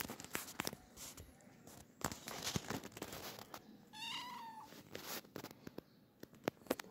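A cat meows once about four seconds in, a short call that rises and falls, among scattered light clicks and rustles.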